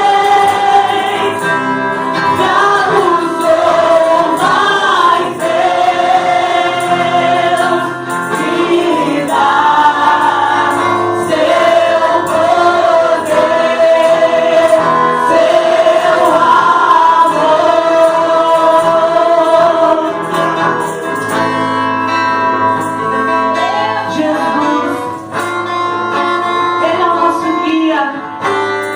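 Gospel worship choir singing a hymn in sustained, held phrases over steady instrumental backing.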